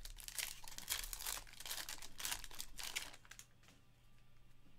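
Trading-card pack wrapper being torn open and crinkled by hand: a rapid run of crackling rustles for about three and a half seconds, then much quieter handling.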